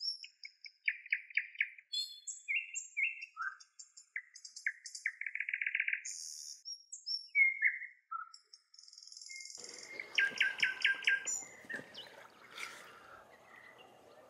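Small birds chirping and singing: short rapid trills and high thin chirps, one after another, with a few slurred notes. About two-thirds of the way through, a faint outdoor background comes in under more trills.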